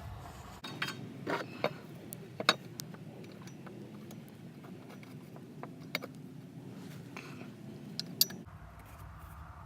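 2005 Volkswagen Touareg engine running steadily at idle, with several sharp clicks and knocks over it, on a test run after a makeshift repair of the driveshaft support bearing.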